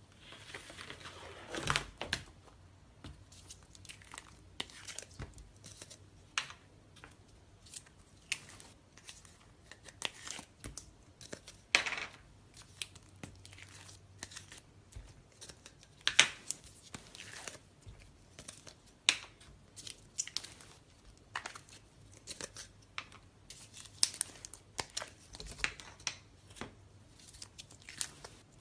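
Slime being squeezed, stretched and poked by hand, giving irregular sticky crackles and pops, a few of them louder than the rest.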